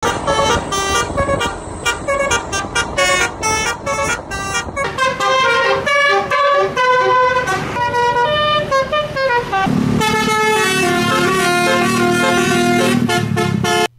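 Indonesian musical bus horns (telolet/basuri) playing tunes. Quick short blasts come first, then longer notes stepping up and down in several pitches, and about ten seconds in, a held lower chord that cuts off suddenly near the end.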